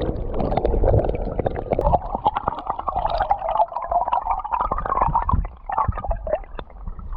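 Water gurgling and sloshing close to the microphone, with many small irregular splashes and clicks.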